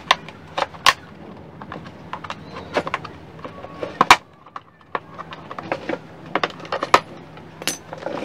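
Irregular clicks, taps and knocks of small tools and plastic and metal parts being handled while a rice cooker's wiring is repaired, the sharpest knock about four seconds in.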